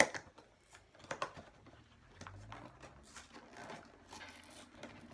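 A snack package being handled and pried at, hard to open: scattered clicks and faint crinkling, with one sharp click at the very start the loudest sound and a cluster of clicks about a second in.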